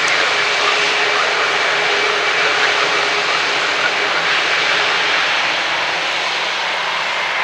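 Airbus A320neo jet engines running steadily as the airliner rolls along the runway just after landing, spoilers up: a constant roar with a faint steady whine, easing off slightly near the end.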